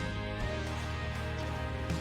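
Background music: a gentle instrumental track with plucked guitar over a steady bass.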